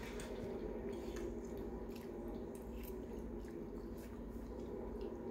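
A person chewing a mouthful of lasagna, with soft, wet mouth sounds and small clicks, over a steady low hum.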